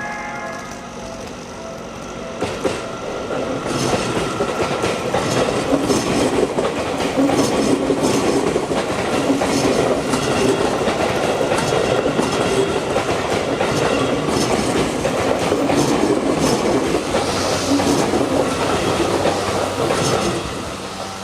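Train passing over a level crossing, a steady loud rush with wheels clacking over rail joints, building about two seconds in and dying away near the end. The crossing's warning bell is ringing at the start.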